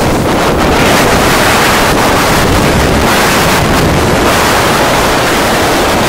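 Loud, steady wind buffeting the microphone over the rush of choppy sea water.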